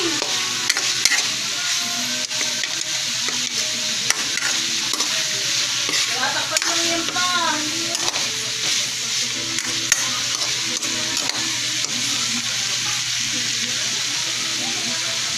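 Sliced bitter gourd (ampalaya) sautéing in hot oil in a pan, sizzling steadily while a spoon stirs it, with frequent short clicks and scrapes of the spoon against the pan.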